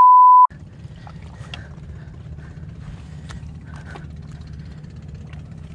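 A censor bleep: a single pure, steady beep lasting under a second at the start, cutting off sharply and covering a swear word. After it comes a steady low rumble with a few faint clicks.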